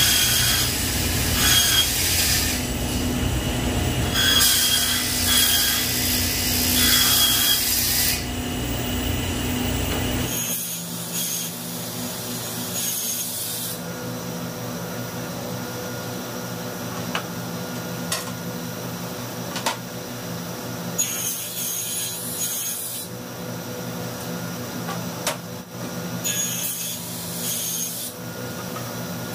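Table saw running, its blade cutting through board panels. The heaviest, loudest cutting fills the first ten seconds. After that the saw runs on with a steadier hum, broken by a few shorter cuts.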